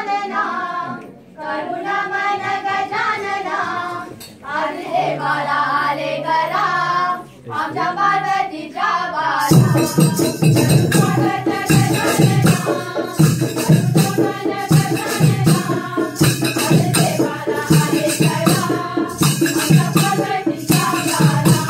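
A group of voices singing a song in phrases with short pauses between them; about nine seconds in, loud percussion with a steady beat joins and the singing carries on over it.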